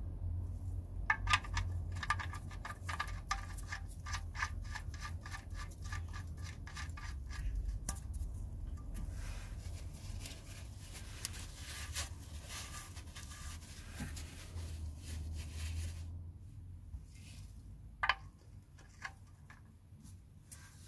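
Drain plug being screwed back into the steel oil sump: a run of quick, even metallic clicks for several seconds, then scraping and rubbing. Near the end comes a single sharp metallic click.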